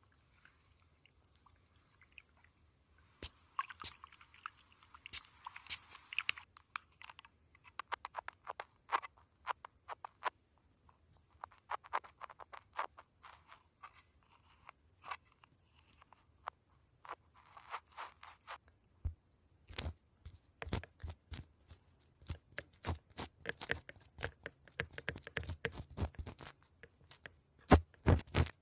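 Close-miked handling of makeup items: irregular clicks, taps and crinkly rubbing. There is a soft scratchy rubbing a few seconds in, and heavier, fuller taps in the second half.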